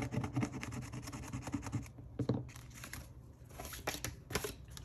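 A coin scraping quickly across a scratch-off card, many fast strokes, stopping about two seconds in. Then a few scattered clicks and rustles as the binder's plastic pages are handled.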